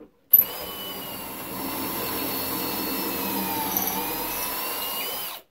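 Cordless drill running a stepped pocket-hole bit through a Kreg jig's drill guide into wood. It starts sharply, grows louder after about a second and a half, dips briefly in pitch about four seconds in, then stops abruptly.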